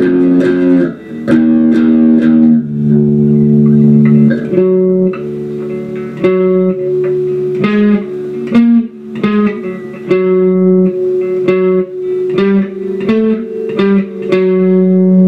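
Guitar playing a riff of picked notes and chords, each struck sharply and left to ring, with the notes changing about every second or so.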